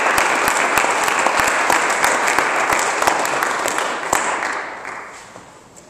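Audience applauding. The clapping holds steady, then fades away about four to five seconds in.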